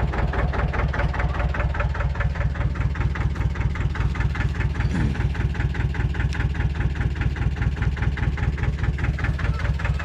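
An engine idling steadily close by, with an even, rapid pulse and a deep rumble.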